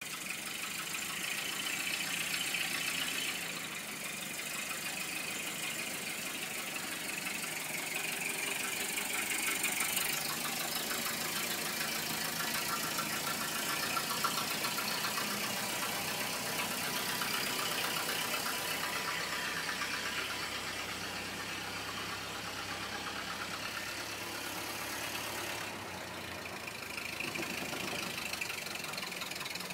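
1929 Ford Model AA truck's four-cylinder engine running as the truck drives along the street.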